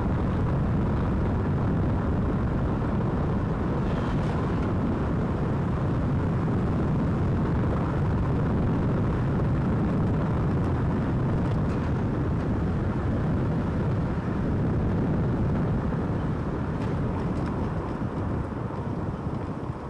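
Wind buffeting a microphone with no windshield from a moving car, a steady low rumbling rush with the car's road noise beneath it. It eases off a little near the end.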